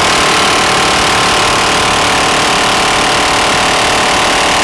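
Minigun firing one long unbroken burst, very loud and steady throughout.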